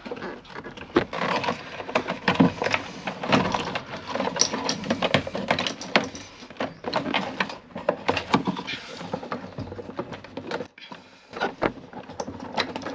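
Irregular plastic clicks, knocks and rattles of hands working the electrical connectors and housing on top of an in-tank fuel pump assembly, unplugging them to free the pump.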